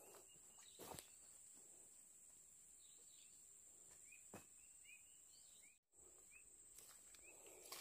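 Near silence: faint outdoor ambience, with a series of faint, short rising chirps from about three seconds in.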